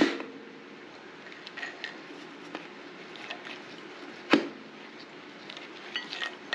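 Distributor being wiggled by hand down into a Ford 5.0 V8 engine block until it seats, giving metal-on-metal clicks and knocks: a sharp clank with a brief ring at the start, another knock about four seconds in, and light ticks in between.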